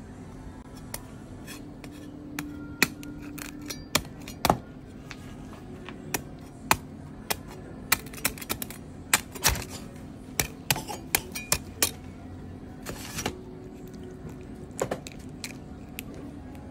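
Crisp, hard roasted skin of a whole lechon (spit-roast pig) cracking and crackling as it is pressed with a thin rod and broken open by hand: a string of sharp, irregular clicks and snaps, thickest around the middle.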